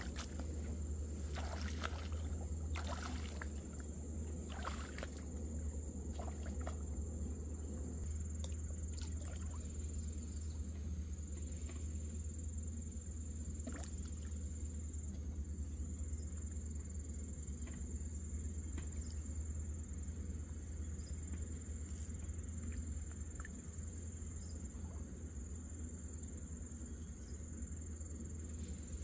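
A steady high-pitched insect drone over a low, steady rumble, with a few short knocks in the first several seconds.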